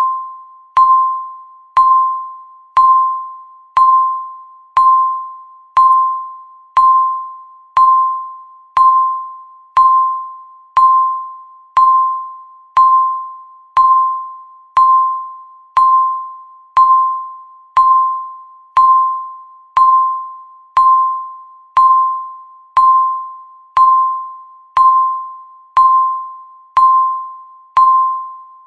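Countdown timer's electronic tick: a short, clear ding-like tone with a sharp click at its start, repeating once a second, each one fading quickly.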